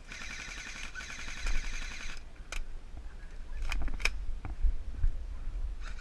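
An airsoft electric gun firing on full auto: a rapid buzzing rattle lasting about two seconds, starting again near the end. Between the bursts, a few sharp clicks.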